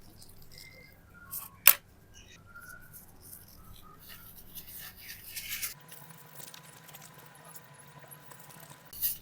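Light scraping and rubbing from small hand tools working on a coin. A sharp click comes about one and a half seconds in and another near the end, and a faint steady tone sits under the second half.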